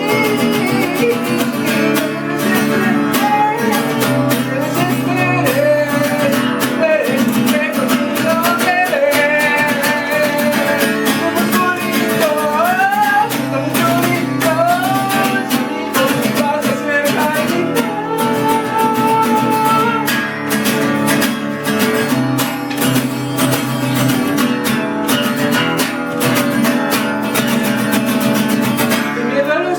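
Music: strummed acoustic guitar with a gliding melody line over it.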